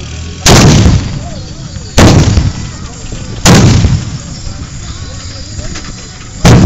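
Carbide cannons firing: acetylene from calcium carbide and water set off with a loud bang. Three bangs about a second and a half apart, then a fourth near the end, each with a short rumbling echo.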